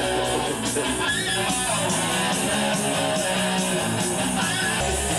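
Rock band music with electric guitar and bass playing steadily.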